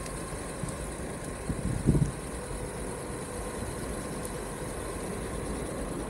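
Exway Atlas Pro 4WD electric skateboard riding along: a steady rumble of the wheels on the road with a faint, even motor whine, and a brief low thump just before two seconds in.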